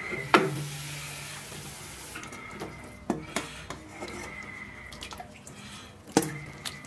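Aluminium pressure cooker being opened with a metal clank, then a metal strainer ladle knocking against the pot as stewed beef ribs are lifted out of the broth, with broth sloshing and dripping.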